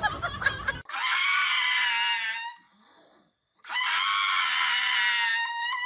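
A voice screaming twice, each scream a long, high, steady cry of about one and a half to two seconds, with a short silence between them.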